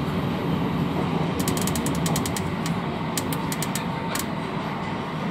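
Steady rumble of an MRT metro train running along the track, heard from inside the car. Between about one and a half and four seconds in come several short runs of fast, light clicking.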